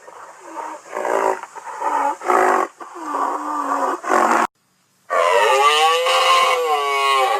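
Designed creature sound effect of a western black rhinoceros, mixed from rhinoceros, triceratops and bull calls. A run of short grunting calls is followed, about five seconds in, by one long bellowing call that rises and then falls in pitch.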